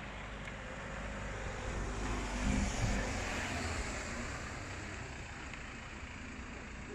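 A road vehicle passing along the street. Its rumble and tyre hiss swell to a peak about two and a half seconds in, then fade away.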